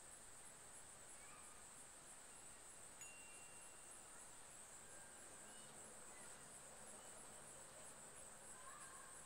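Near silence: faint outdoor ambience with a steady high-pitched trill that pulses about twice a second, and a few faint chirps.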